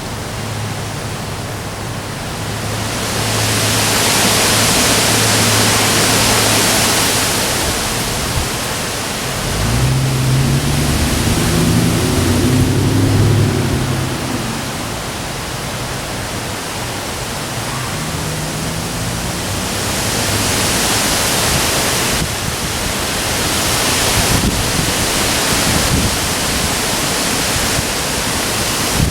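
Heavy rain and strong wind, a steady rushing that swells with gusts twice. A low rumble runs for a few seconds near the middle.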